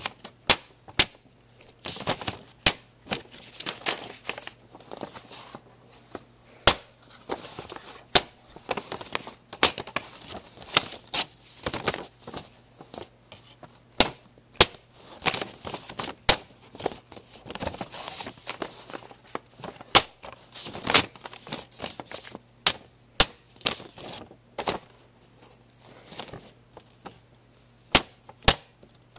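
Stainless steel Smith & Wesson S.W.A.T. frame-lock folding knife slicing a sheet of paper: many sharp crackles and snaps of the paper, with several hissing stretches of cutting, over a faint steady low hum.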